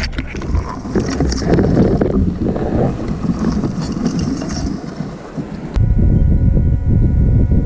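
Willow branches and leaves brushing and scraping across the camera's microphone, a dense crackly rustle. About six seconds in, a steady electric hum with low wind rumble cuts back in as the branches clear.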